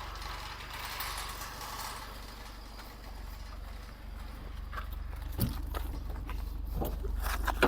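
Nissan Sunny car's engine idling with a steady low hum as the car creeps forward on its own. A few clicks and knocks come in the second half, the loudest one near the end.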